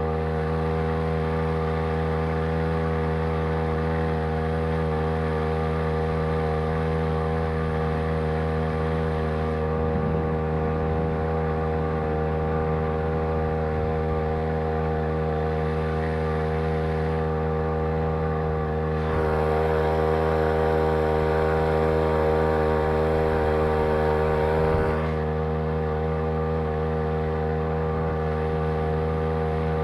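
Homemade outboard motor running steadily under way: a Champion T516 two-stroke trimmer engine driving a Sailor 2.0 lower unit, holding an even, steady note. It gets louder for several seconds about two-thirds of the way through, then settles back.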